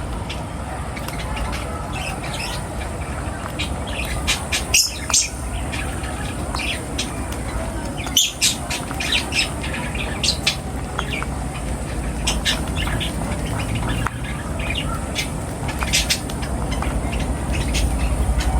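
Birds giving short squawks and chirps in scattered bursts over a steady low background rumble.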